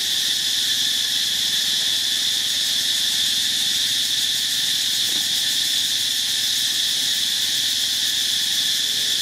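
Insects droning in a loud, steady, high-pitched chorus.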